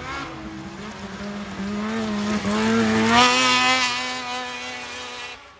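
Snowmobile engine running hard as the sled speeds toward and past, a steady high note that steps up a little and is loudest about three seconds in, then fades before cutting off abruptly.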